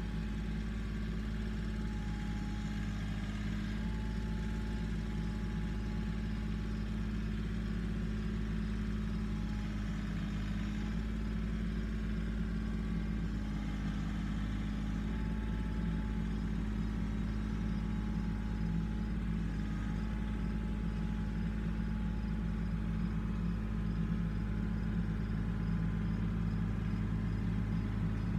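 Compact tractor engine running steadily, a low even hum.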